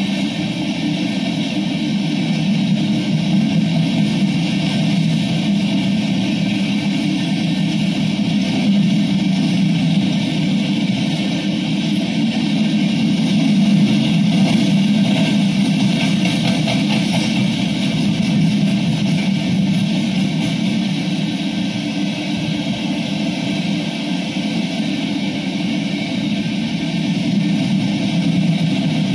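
Freight train of open-top hopper cars rolling past: a steady rumble and clatter of steel wheels on rail, heard through a live-camera microphone and played back over computer speakers.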